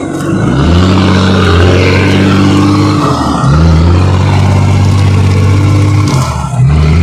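Off-road 4x4's engine revving hard and held at high revs. The revs drop twice and climb straight back up each time.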